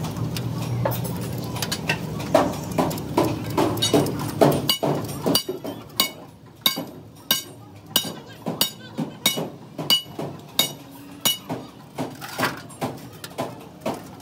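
Repeated hammer blows on metal, about two a second, each with a short metallic ring. A low hum runs underneath and stops about five seconds in.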